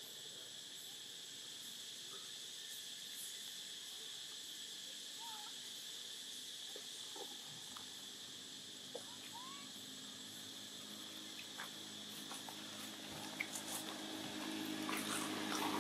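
Steady high-pitched insect drone from the surrounding forest, with a few faint short chirps about five and nine seconds in. A low hum and scattered rustling clicks build up near the end.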